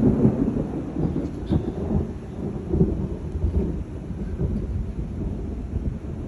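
Thunder rumbling: a loud crack-like onset right at the start, then a long low rolling rumble that swells and fades unevenly.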